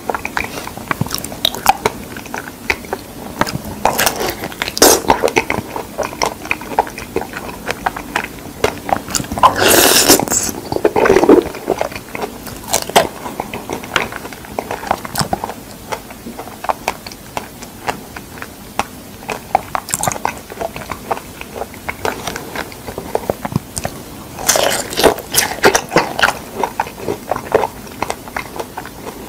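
Close-miked eating of fresh figs: chewing and biting with many small wet mouth clicks. The sounds grow louder and denser about ten seconds in and again about twenty-five seconds in.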